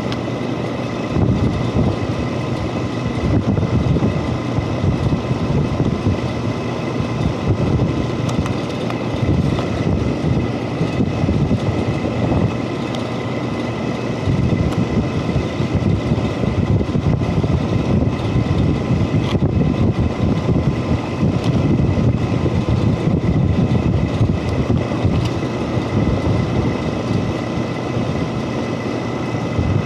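Rooftop package HVAC unit running: a steady, loud mechanical rumble from its fan and compressor, with a faint steady whine.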